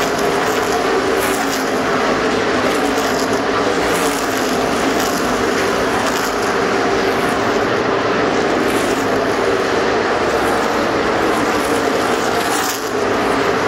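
NASCAR stock cars' V8 engines running at full throttle around the oval, a loud steady drone with cars passing one after another.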